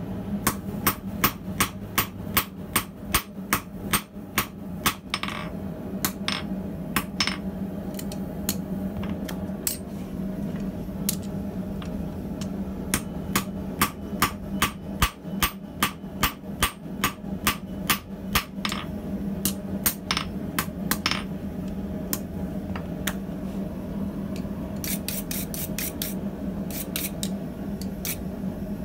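Hand hammer striking red-hot steel held in tongs on an anvil, in runs of ringing blows about two to three a second with pauses between. Near the end a wire brush scrubs scale off the hot bar in a quick run of scratchy strokes. A steady low hum runs underneath.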